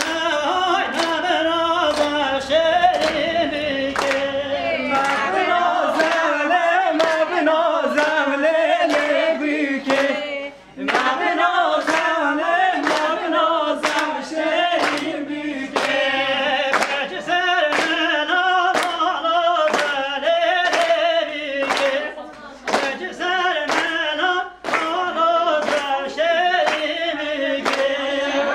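A group of people singing unaccompanied together, with steady rhythmic handclapping, about one and a half claps a second.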